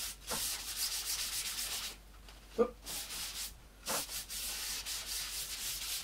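Wad of kitchen towel rubbing red ochre pigment onto glossy photo paper in quick back-and-forth scrubbing strokes, coating the sheet so it works as a carbon-paper-style transfer sheet. The strokes pause briefly twice, and a single short sharp sound comes about two and a half seconds in.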